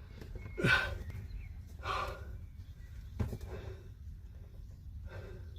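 A man breathing hard through his nose while he works, four short huffs a second or so apart, with a small click about three seconds in.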